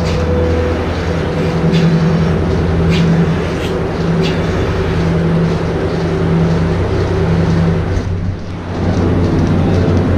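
Steady drone of dairy milking equipment running during milking, a constant low hum with a few faint clicks in the first half.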